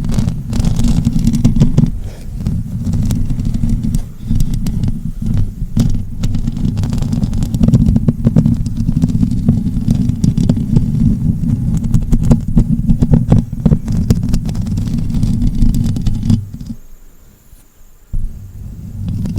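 Close-miked ASMR scratching: a dense, low rumbling crackle of fingertips or nails scraping right at the microphone, which stops for about two seconds near the end.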